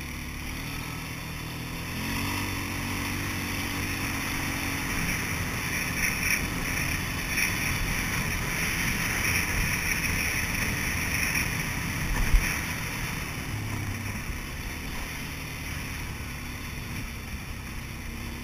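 Polaris Sportsman 400 ATV engine running while riding, picking up revs about two seconds in and then holding steady. One sharp thump about twelve seconds in.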